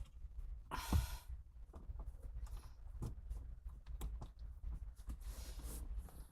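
Small metallic clicks and taps of a bolt, washer and nut being handled and fitted on a car's short-shifter assembly. A short breathy exhale comes about a second in, with a light thump, and another soft rush of breath near the end.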